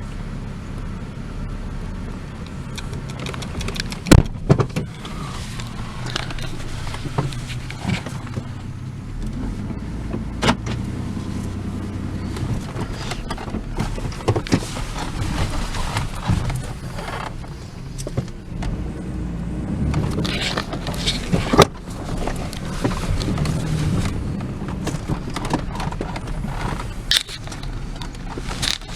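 Car running slowly, heard from inside the cabin: a steady low engine and road rumble with scattered knocks and rattles, several sharp ones standing out.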